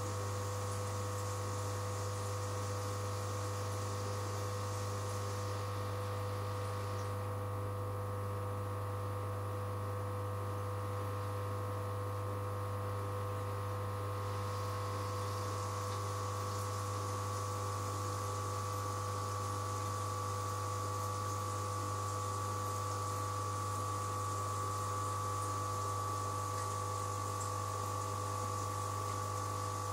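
Steady hum of an aquarium air pump driving sponge filters: a low, even buzz with a few steady higher tones over it.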